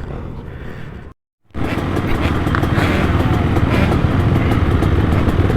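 2003 KTM 200 SX two-stroke motocross bike running on the track. The sound drops out completely for a moment about a second in, then comes back louder and steadier, with scattered sharp ticks over the engine.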